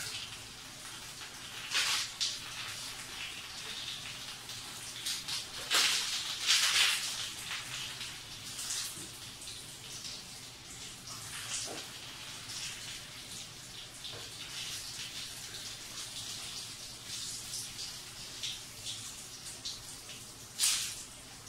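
Water splashing over a person's head and down onto a tiled floor as shampoo is rinsed out of her hair, a steady hiss with louder splashes about two seconds in, around six to seven seconds in, and near the end.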